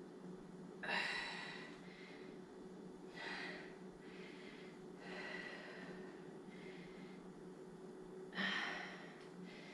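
A person breathing hard under exertion while working a resistance band: about four sharp exhalations, two to three seconds apart, the loudest about a second in and near the end. A faint steady hum runs underneath.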